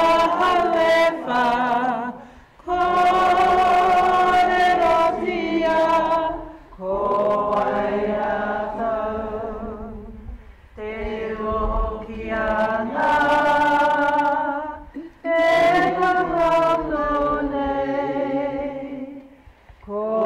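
Unaccompanied Māori waiata led by a woman's voice: about five long, held phrases with vibrato, each broken off by a short breath.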